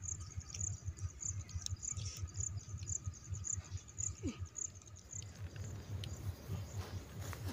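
Insect chirping at a steady rhythm of about two chirps a second, over a low crackling rustle.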